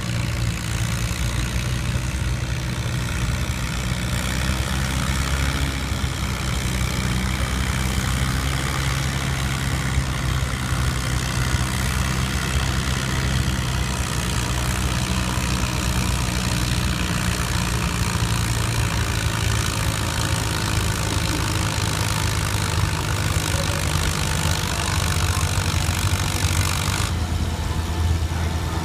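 Oliver 88 tractor's six-cylinder engine running steadily, not yet under load, as the tractor drives up to the pulling sled.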